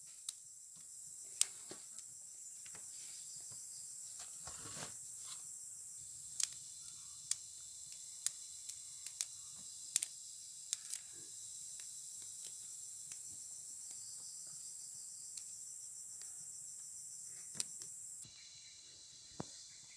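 Steady high-pitched chirring of insects such as crickets, with irregular sharp snaps and clicks as fern shoots are handled and broken by hand. The chirring drops a little near the end.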